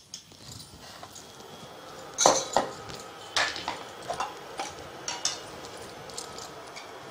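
Kitchen utensils clinking and knocking: small steel bowls, spoons and a metal tin being handled on the counter, a string of short sharp clinks, the loudest a little over two seconds in.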